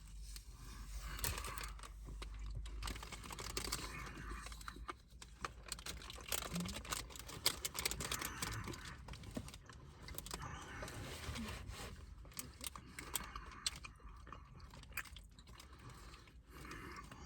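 Close-up chewing of a crunchy specialty apple: a person biting and munching, with many quick irregular crunchy clicks.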